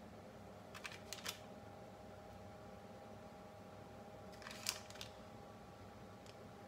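A few light taps and clicks of tomato slices and a knife being handled on a wooden cutting board: three about a second in and two more about four and a half seconds in, over a faint steady hum.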